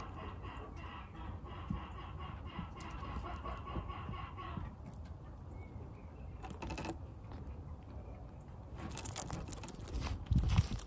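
Chickens clucking in the background for the first four or five seconds. Near the end come a cluster of crisp clicks and crunches as a bearded dragon bites and chews a superworm, with a low thump.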